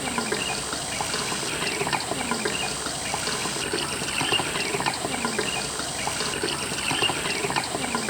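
Gasoline poured slowly from a gas can through a funnel into a fuel-mixing container: a steady trickle and splash of liquid.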